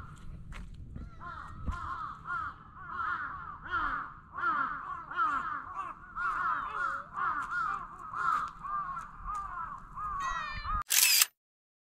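A cat meowing over and over in short, rising-and-falling calls, about two a second. Near the end there is a brief loud noise, then the sound cuts off.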